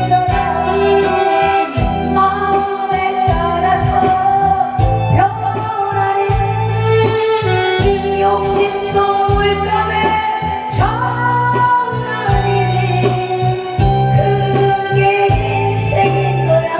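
Amplified Korean trot song played from a backing track with a steady bass beat, with a singing voice carrying the melody.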